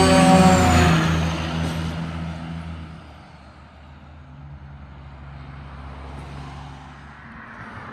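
A passing truck's horn, several tones sounding together, cuts off about a second in. The truck's engine then fades away as it drives off, leaving a fainter low engine drone.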